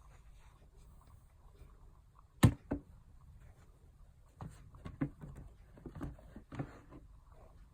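Handling noises: after a quiet start, one sharp knock about two and a half seconds in, followed quickly by a second. Then comes a scatter of lighter knocks, taps and rustles in the second half.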